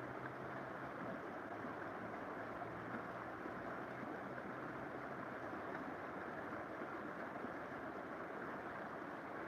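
River water flowing: a steady rushing noise with no break, with a faint low hum in the first half.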